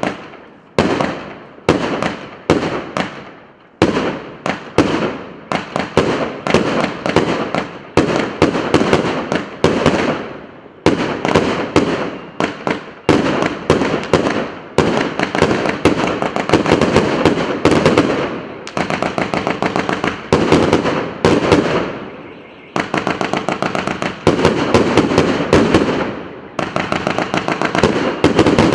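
A Russkaya Pirotekhnika PC781 'Sto v odnom' fireworks cake, 100 shots of 1-inch (25 mm), firing shot after shot, several launches a second, with the stars bursting overhead. The shots come in uneven bunches, broken by a few short lulls.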